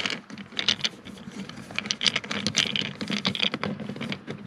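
Irregular plastic clicks, taps and rustling as hands work at the plastic trim panel under a car's glovebox, unclipping it to get at the footwell light.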